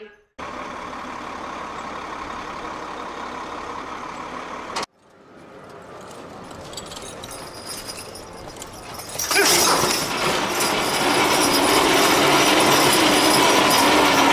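Engine of a horse-pulling dynamometer truck running under load as a team of draft horses drags it. The sound is steady, cuts out abruptly about five seconds in, and turns much louder and steady from about nine seconds on.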